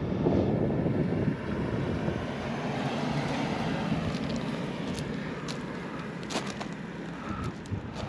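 A motor vehicle's engine passing on the mountain road, a steady hum under rumbling wind on the microphone, with a few light ticks near the end.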